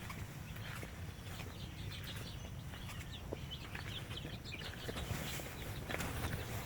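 Chickens calling: a run of short, high, falling chirps in the middle seconds, over a low steady rumble.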